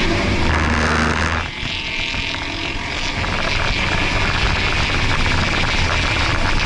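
Ford Focus RS's 2.3-litre turbocharged four-cylinder heard from inside the cabin under load on track, with road and wind noise. The sound drops briefly about a second and a half in, then builds again as the car pulls down the straight.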